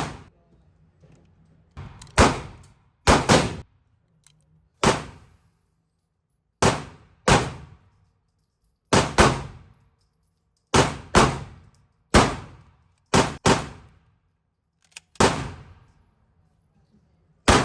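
Airsoft replica of the Canik TTI Combat pistol firing about fifteen shots at an uneven pace, some single and some in quick pairs. Each shot is a sharp crack with a short ringing tail.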